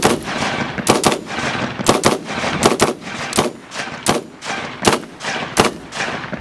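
AR-15 rifle fired semi-automatically in a string of about a dozen shots, some in quick pairs, each shot trailing off in a short echo.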